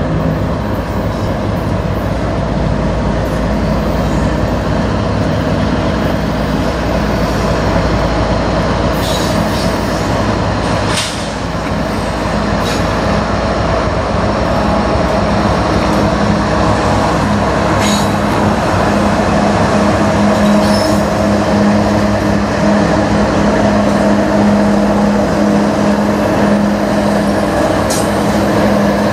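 A diesel freight train led by two CN locomotives rolls past close by, its engines running with a steady low drone. A few brief high-pitched wheel squeals come through several times.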